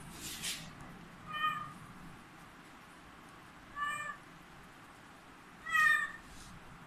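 Kitten meowing three times, short high-pitched meows a couple of seconds apart, the last one the loudest.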